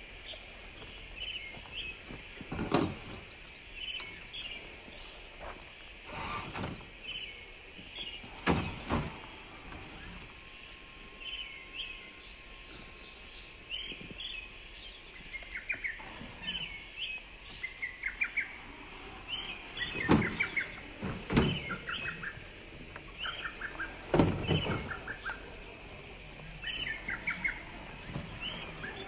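Small songbirds chirping over and over, with about half a dozen louder sudden scuffs and knocks in dry leaf litter and rock, a few seconds apart.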